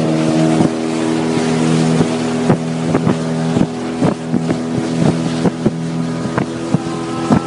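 Small boat's motor running steadily under way, with water rushing past the hull and wind on the microphone. Irregular short slaps and knocks come thick and fast from the second half on.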